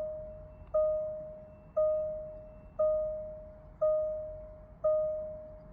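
Jaguar XJL's instrument-cluster warning chime sounding over and over, a single clear tone about once a second, each one fading before the next. It goes off while the dashboard is lit with warnings.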